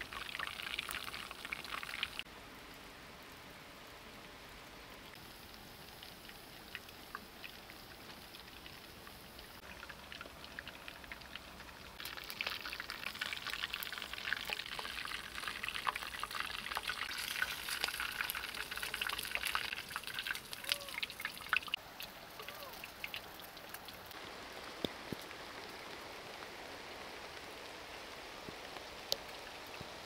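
Hot oil sizzling and crackling in the cups of a clay egg pan over a wood fire. The sizzle is fainter through the first stretch, then grows louder and busier in the middle as eggs drop into the hot oil, and settles into a steadier hiss near the end.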